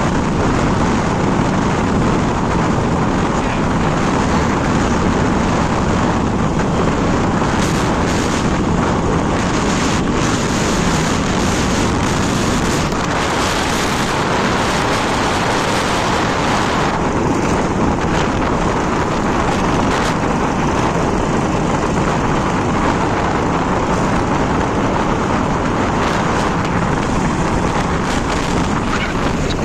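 Steady rush of wind on the microphone, mixed with the motorcycle's road and engine noise as it rides along at speed.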